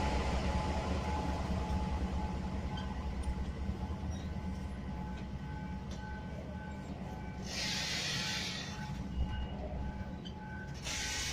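A train rolling past with a steady low rumble that eases off over the first few seconds, and a thin, steady squeal from the wheels. Two short bursts of hiss come near the end.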